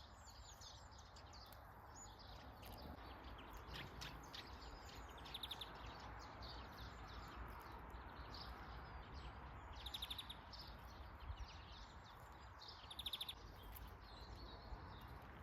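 Small songbirds calling and singing, many short high chirps with a rapid trill three times, over a faint steady background hiss.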